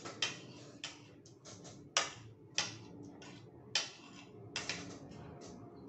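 Metal spoon clinking and scraping against a plate as rice is scooped and served, in a series of short sharp strokes about once a second.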